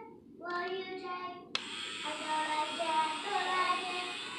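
A young child singing. About a second and a half in, a click brings in a steady hiss under the voice.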